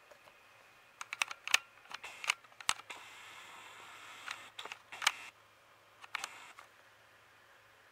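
Handling noise of a camera being moved and repositioned: a scattering of sharp clicks and taps over about five seconds, with a stretch of rustling in the middle.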